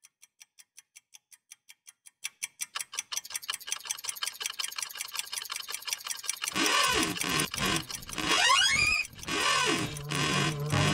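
Fast clock-like ticking on a horror soundtrack, several ticks a second, growing louder from faint. About six and a half seconds in, it is joined by an eerie, noisy music layer with sweeping rising and falling glides.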